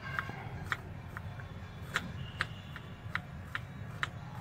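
Kitchen knife chopping an onion on a wooden chopping board: sharp knocks of the blade on the board at an uneven pace, about two a second, over a faint steady low hum.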